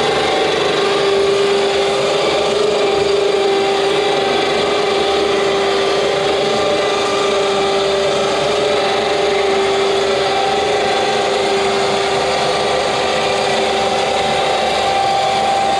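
An automotive winch motor drives a roll-off observatory roof open, the roof riding on V-groove casters. It makes a loud, noisy, steady mechanical whine that holds one pitch throughout.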